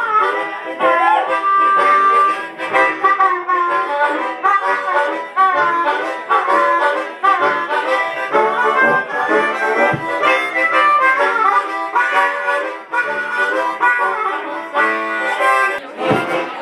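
Harmonica trio playing a tune together: a lead harmonica melody with sliding, bent notes over rhythmic chords from a chord harmonica.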